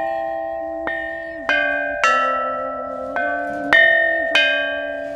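Bronze chime bells (bianzhong) struck with wooden mallets, playing a slow melody. There are about six strikes, roughly one every half second to a second, and each note rings on under the next.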